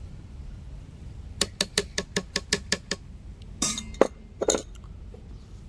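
A spoon clinking against a mixer jar: a quick run of about nine light taps, roughly six a second, then two louder clattering knocks.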